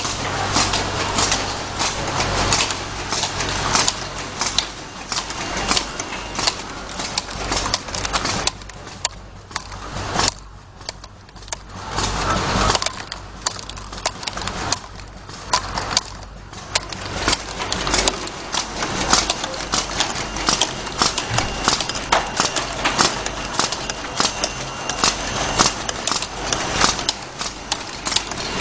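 Bottle labeling machine running: a steady motor hum under rapid, irregular clicking and clattering of small plastic chewing-gum bottles moving through the conveyor and applicator. The clatter eases for a few seconds about ten seconds in.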